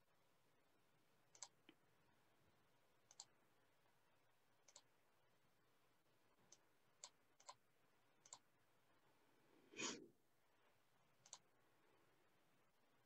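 Faint computer mouse clicks, about ten scattered singly and in pairs, with one louder, longer knock about ten seconds in.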